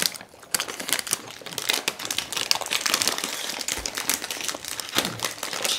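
Plastic and foil ice cream wrappers crinkling as they are handled and peeled open by hand, a dense run of fast crackles.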